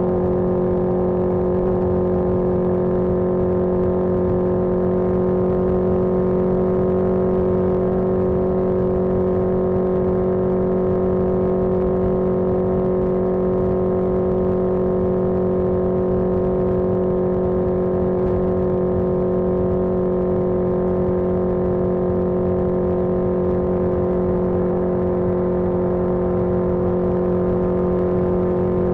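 1981 Yamaha XJ650 Maxim's air-cooled inline-four engine running at a steady speed under way, holding one even pitch throughout, with a rough low rumble beneath it.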